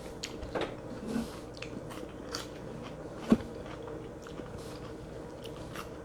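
Close-miked sounds of a person eating: chewing and biting with scattered small wet clicks, and one sharp knock a little past the middle.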